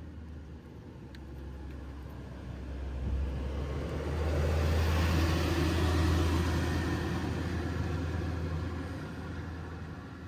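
A passing road vehicle: a low rumble that swells over a few seconds, peaks midway and fades away, over a steady low hum.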